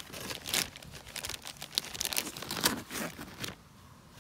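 Plastic packaging crinkling in irregular crackles while being handled, stopping about three and a half seconds in.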